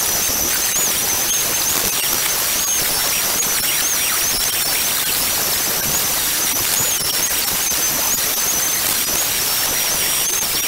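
Electric belt sander running steadily on a wooden slat: a loud, even hiss of the abrasive belt on the wood over a thin, high motor whine that wavers slightly in pitch.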